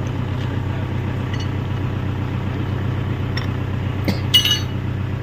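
Hyundai 85A Smart excavator's diesel engine idling steadily, with a few short metal clinks late on; the loudest, about four seconds in, rings sharply, as of steel parts striking during an attachment change.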